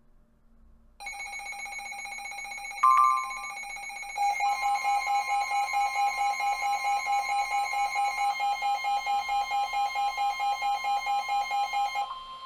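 Electronic alert alarm. A steady high electronic tone starts about a second in, a brief louder two-tone blip comes at about three seconds, and from about four seconds the alarm beeps rapidly, about four beeps a second, until it cuts off just before the end.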